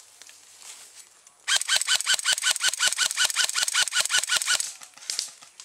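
Airsoft rifle firing a rapid string of shots, about nine a second, for about three seconds, starting about a second and a half in.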